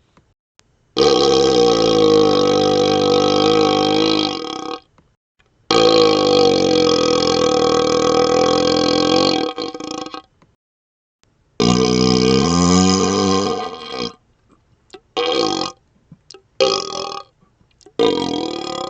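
Human burps made through a hollow vacuum extension tube, which gives them an odd, hollow tone. Two long, drawn-out burps of about four seconds each, then a shorter one, two brief ones, and another starting near the end, with short silent gaps between.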